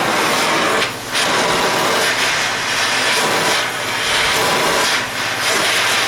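Gas torch flame running with a steady roaring hiss while it heats the spine of a hardened blade to draw a temper. The noise dips briefly three times.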